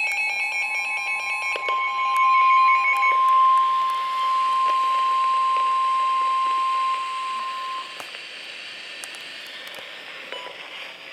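Emergency weather alert over a radio: a pulsing electronic beeping for the first three seconds, overlapped from about two seconds in by the steady single-pitch NOAA Weather Radio warning alarm tone. The tone cuts off about eight seconds in and leaves a faint hiss.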